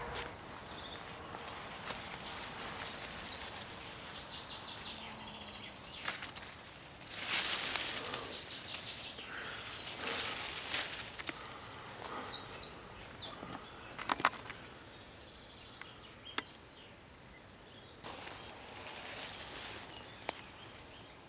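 A songbird sings quick runs of high stepped notes, once near the start and again about two-thirds of the way in, over outdoor ambience with intermittent rustling noise.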